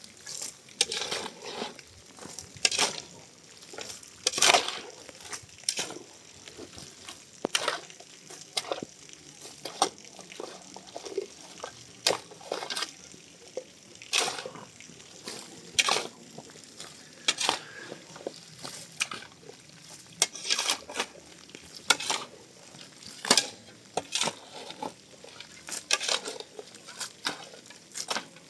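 A spoon stirring and scraping in a pot or pan: irregular strokes, about one a second.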